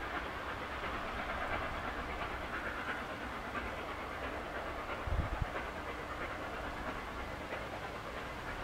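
LNER A3 Pacific steam locomotive 60103 Flying Scotsman working a train up the line, heard as a steady haze of exhaust and train rumble rather than distinct beats. A short low buffet, likely wind on the microphone, comes about five seconds in.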